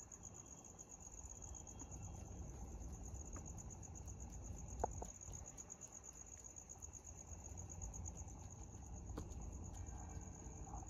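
Crickets chirping at night in a steady, high, fast-pulsing trill, with a couple of faint clicks about five and nine seconds in.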